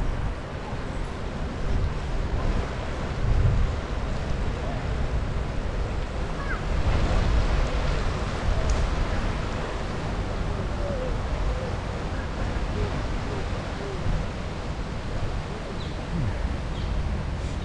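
Wind buffeting the microphone of a moving bicycle, a steady low rumble that swells a few times, with a few faint short chirps here and there.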